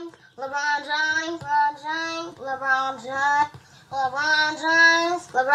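Music: a solo singing voice sings four short phrases of held, slightly wavering notes, with almost no accompaniment under it.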